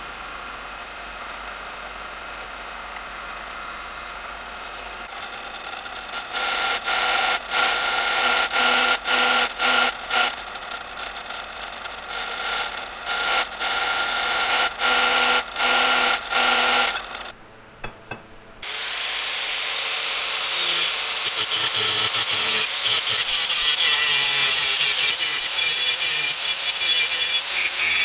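Drill press motor running, then its twist bit boring through steel angle in repeated stretches of cutting with short pauses. After a brief break, an angle grinder's cutoff disc cuts into a steel bar, louder and continuous.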